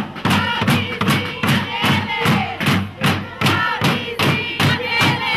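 Crowd of protesters chanting together over a steady drum beat.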